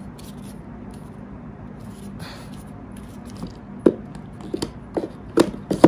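Sharp plastic clicks and knocks as Dyson Airwrap barrel attachments are handled and set into their fitted storage case, several in quick succession in the last two seconds, over a low steady hum.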